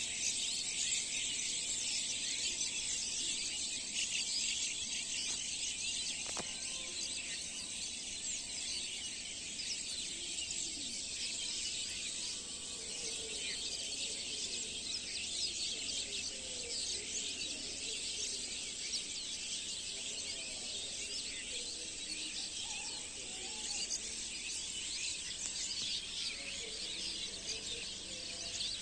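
Dense chorus of many small birds chirping and chattering together in a tree, a continuous busy twittering throughout.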